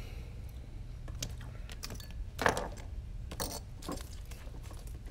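A few small clicks and clinks of tools and parts being handled on a workbench, the sharpest about halfway through, over a steady low hum.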